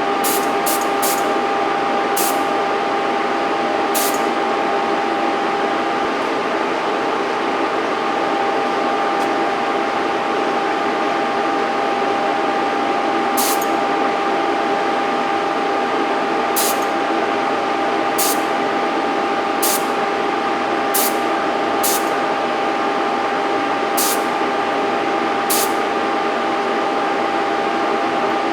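Air spray gun applying Cerakote coating, heard as about a dozen short hissing bursts at irregular intervals, over a steady mechanical hum with two steady tones.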